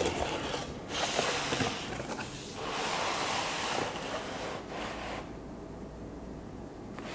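Cardboard box and its plastic wrapping rustling and scraping as it is opened and handled, in several bursts over the first four seconds, with a short one a second later, then quieter.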